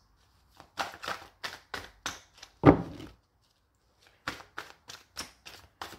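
Tarot cards being overhand-shuffled by hand: a run of quick, soft card slaps with one louder slap a little before the middle, a pause of about a second, then another quick run.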